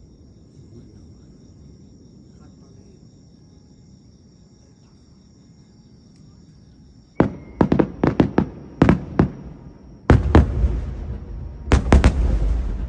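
Fireworks from a star mine barrage. A quick run of about seven sharp bangs comes about seven seconds in, then heavier bursts near the end that leave a rolling rumble. Before the bangs, a faint steady high chirring of insects.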